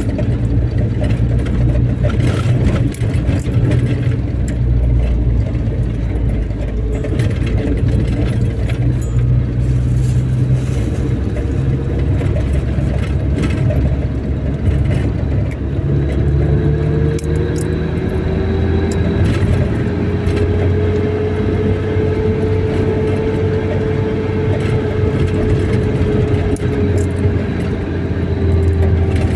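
Car on the move: a steady low road and engine rumble, with a whine that rises and falls gently over the second half.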